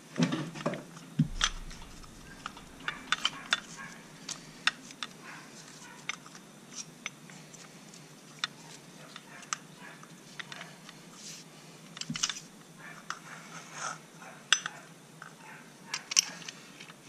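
Irregular light metal clicks and taps as pistons in ring compressors are handled and worked down into the cylinder bores of an outboard powerhead block, the sharpest clicks in the first second or two.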